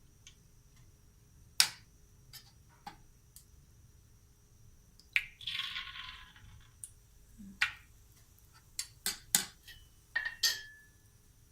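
Kitchen utensils clinking and tapping against a pan and dishes, a dozen or so sharp clinks, one ringing briefly near the end. About five seconds in comes a short sizzle lasting about a second and a half, as battered pork goes into the hot frying oil.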